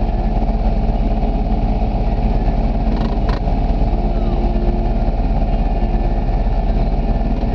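ATV engine idling steadily, with a brief double metallic knock about three seconds in.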